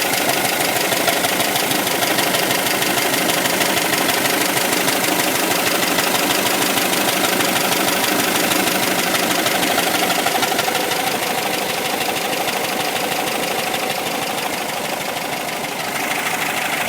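1977 VW Westfalia bus's fuel-injected 2.0-litre air-cooled flat-four running steadily, easing off slightly near the end.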